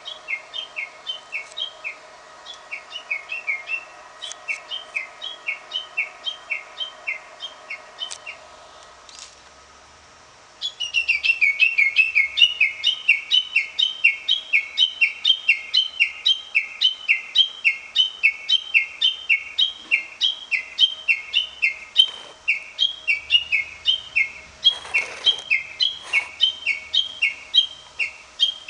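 A single bird singing a long, fast run of repeated two-part notes, each dropping in pitch, about three a second. The run is fainter at first, breaks off briefly about ten seconds in, then resumes louder and goes on without a pause.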